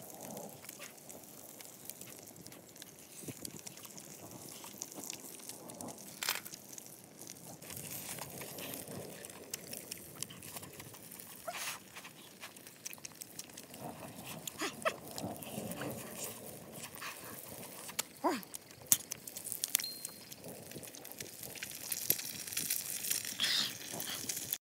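A person eating: chewing and lip-smacking, with scattered small clicks and a few short mouth sounds over faint steady background noise.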